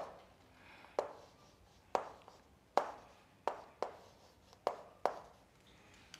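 Chalk writing on a chalkboard: about seven sharp taps, unevenly spaced, as each stroke of chalk strikes the board.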